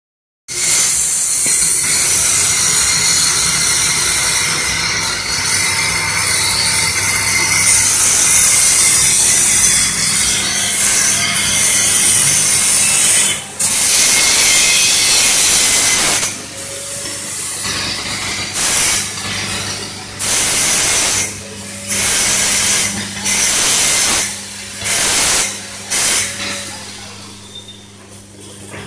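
Vibratory bowl feeder running: a steady electromagnetic hum under a loud, hissing rattle of screws travelling through the bowl and track. About halfway through the rattle breaks into short bursts of around a second, seven of them, and it dies down near the end.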